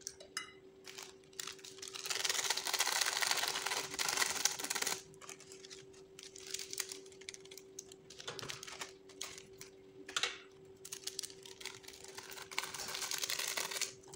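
Plastic instant-noodle seasoning sachets crinkling and tearing as they are opened and emptied over a plate of noodles. There is one long burst of crackling about two seconds in and another near the end, with scattered light clicks between them over a faint steady hum.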